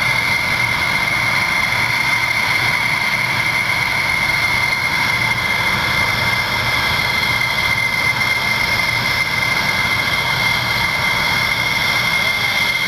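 Aircraft jet engine running steadily, a constant high whine over a rushing noise, with no rise or fall in pitch or loudness.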